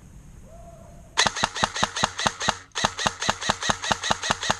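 Airsoft gun firing two long full-auto bursts, about nine shots a second, with a short break between them about two and a half seconds in.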